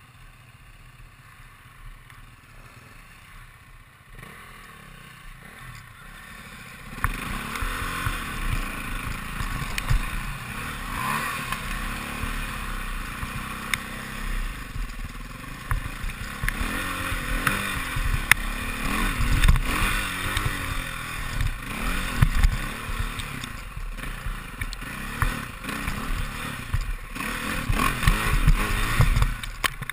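Enduro dirt bike engine heard from on the bike. It runs quietly at low revs for the first seven seconds or so, then revs up and down repeatedly as the bike rides a rough trail, with clattering knocks from the bike over the ground.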